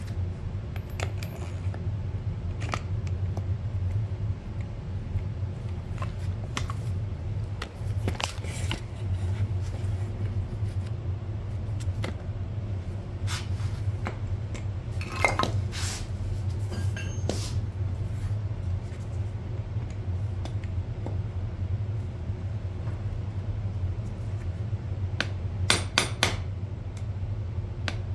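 Hand tools clinking and tapping on the steel parts of a Bilstein shock absorber being taken apart: scattered sharp clicks, then a quick run of four or five sharp metallic taps near the end, over a steady low hum.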